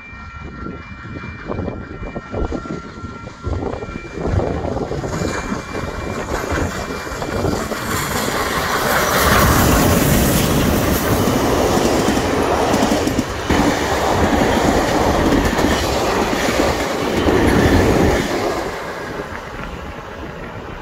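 Steam train heard from inside a carriage: wheels clattering over rail joints with a steady rumble. The noise grows louder a few seconds in and eases off near the end.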